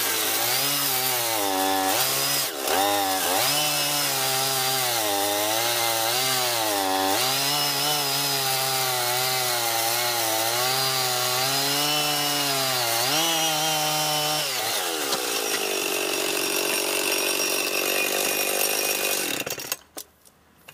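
Husqvarna 55 two-stroke chainsaw running at full throttle as it cuts through a log, its engine pitch dipping and recovering as the chain loads in the wood. About fourteen seconds in the pitch falls away, and the sound stops abruptly near the end.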